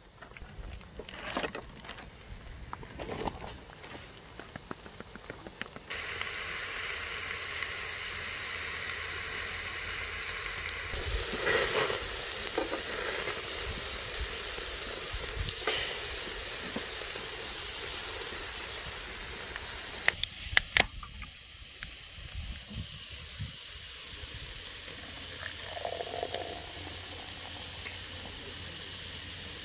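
Pork neck steaks sizzling on a hot grill pan, along with sausages and vegetables. The sizzle starts suddenly about six seconds in, after a few light taps and clicks, and runs steadily, with a couple of sharp clicks about two-thirds of the way through.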